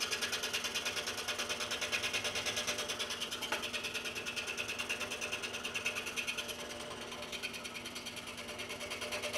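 Scroll saw cutting a polycarbonate sheet: a steady, rapidly pulsing buzz from the reciprocating blade, dropping a little in level for a few seconds near the end.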